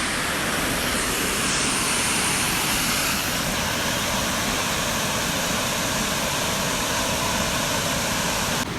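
Waterfall rushing: a steady, even noise of falling water that drops abruptly near the end.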